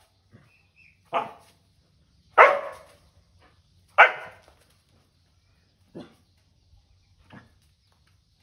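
A dog barking in five separate barks, three loud ones in the first half and two fainter ones after, as it confronts a snake on the ground.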